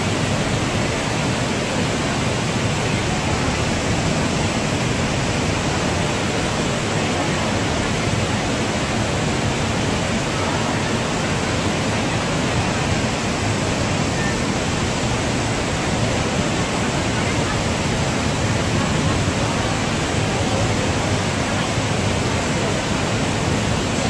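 Artificial waterfall pouring from the underside of a road bridge into a canal: a steady, even rush of falling water splashing onto the water surface.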